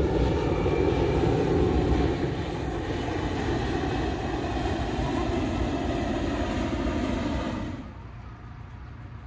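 Propane burner of a hot-air balloon firing during lift-off, a steady rushing noise that heats the envelope. It drops away sharply a little before the end.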